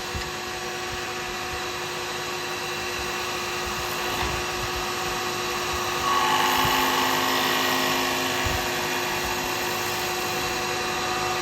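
Wood lathe running with a steady motor hum while a carbide chisel cuts a spinning cast-resin and burr pen blank. The cutting noise grows louder about six seconds in.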